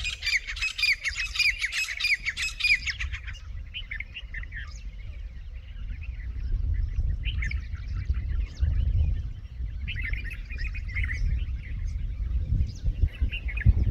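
A flock of grey francolins (partridges) calling: a dense chatter of rapid harsh calls for the first three seconds or so, then scattered shorter bursts of calls. A low rumble runs underneath and grows louder toward the end.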